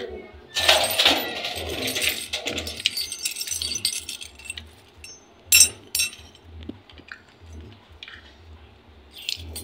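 Loose metal bolts, nuts and washers from a satellite-dish mounting kit clinking and rattling as they are tipped out and sorted by hand on a table. A dense run of clinking fills the first few seconds, then two sharp clinks come a little past the middle, followed by scattered lighter clinks.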